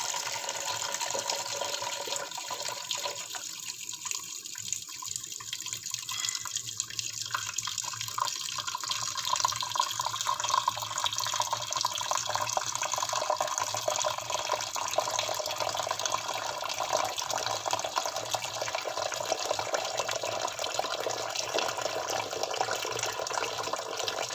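Kitchen tap running a steady stream of water into a stainless steel pot of lamb pieces, splashing as it fills the pot with water for boiling.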